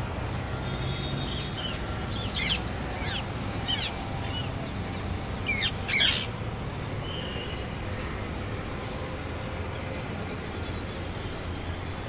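Rose-ringed parakeets squawking: short, high calls that fall sharply in pitch, coming in a few clusters, the loudest about six seconds in, over a steady low background rumble.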